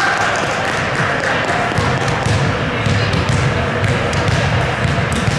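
A volleyball thudding as it is bounced on the gym floor, several sharp knocks at uneven intervals, over chatter of players and spectators echoing in a large gym.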